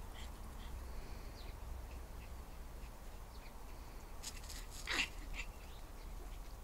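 A Pomeranian gives one short, sharp yip that falls in pitch about five seconds in, over a low steady rumble and faint scattered chirps.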